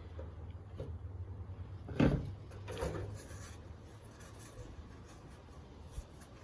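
Faint rubbing and scraping as peanut butter is spread over a cardboard tube, with a sharp knock about two seconds in and a softer one just after.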